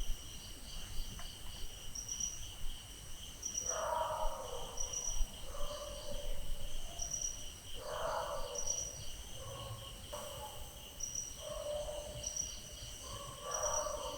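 Night ambience of crickets trilling steadily, with a higher chirp repeating about once a second, and a dog barking several times, loudest about 4, 8 and 13 seconds in.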